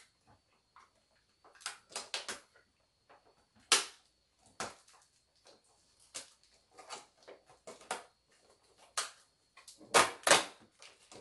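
Clear plastic bread bag and wrapper crinkling and rustling in short irregular crackles as bread is unwrapped and handled, loudest about four seconds in and twice near the end. A faint steady high whine runs underneath.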